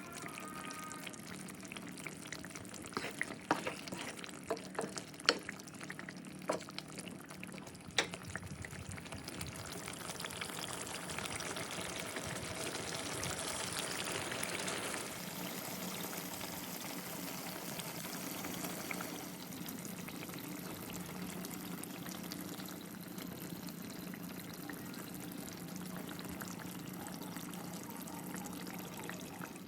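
Chicken korma sizzling in a pan, a steady hiss that grows a little louder and then holds. In the first several seconds a utensil clinks sharply against the pan a few times.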